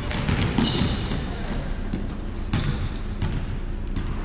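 Indoor basketball play on a hardwood court: the ball bouncing with repeated low thumps and a few sharper knocks, along with players' footsteps. There are a couple of short high sneaker squeaks, one near the middle.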